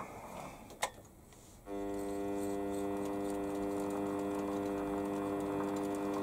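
A sharp click, then about a second and a half in the Warco lathe's variable-speed motor starts and runs with a steady whine as the chuck turns slowly.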